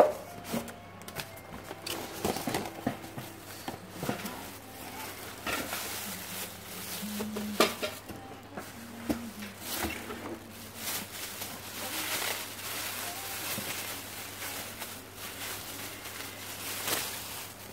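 Packaging being handled while a steam pot is unboxed: plastic wrapping crinkling and rustling, cardboard flaps scraping, and scattered light knocks.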